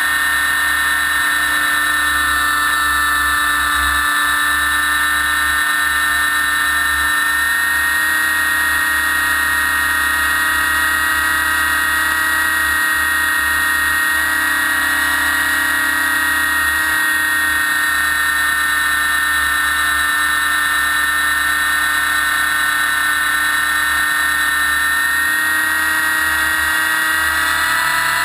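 Align T-Rex 600 EFL Pro electric RC helicopter heard from a camera mounted on its frame: a loud, steady high whine from the brushless motor and drive gears, drifting slightly up and down in pitch as the head speed changes.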